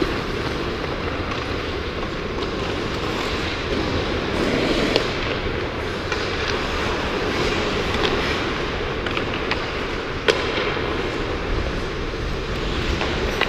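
Ice hockey skating heard from a skater-worn GoPro: a steady rush of skate blades on the ice and moving air, broken by scattered sharp clacks of sticks and pucks. The loudest crack comes about ten seconds in.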